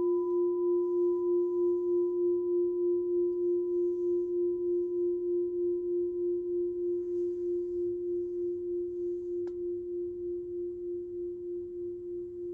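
Antique Japanese brass orin (Buddhist bowl bell) ringing on after a strike. It gives one low steady tone with a slow, regular pulsing waver and a fainter higher overtone, all fading gradually.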